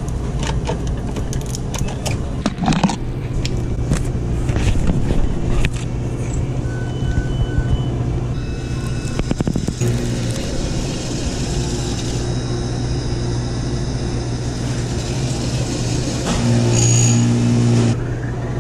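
Clicks and knocks of a milkshake cup being handled and set into a f'real self-serve blending machine, then three short beeps. After that the machine's blender motor runs steadily for about ten seconds, louder for its last second or so, and stops near the end.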